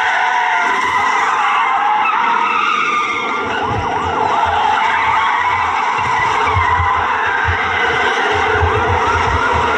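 Cars speeding and sliding on a dirt road in a chase, tyres squealing again and again in short wavering screeches over the engines.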